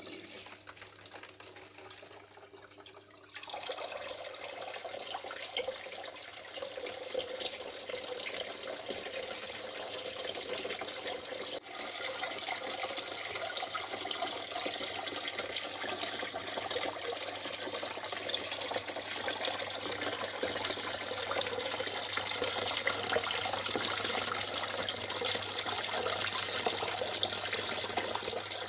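Water from a plastic-bottle fountain falling in three thin streams onto the water in the basin below, a steady splashing that gets louder about three seconds in. A low steady hum runs underneath.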